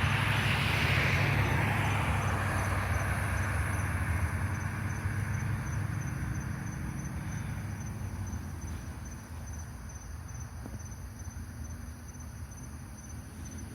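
Recording slowed to quarter speed: deep, low rumbling noise that slowly fades, with a faint, high-pitched beeping repeating at a quick, even rate.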